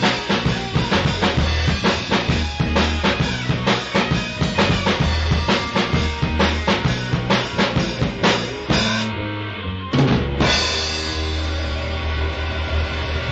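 Blues-rock band playing an instrumental passage, driven by a busy drum kit with bass drum and snare hits. About nine seconds in the drums break off briefly. A hit at about ten seconds brings the band back on sustained notes.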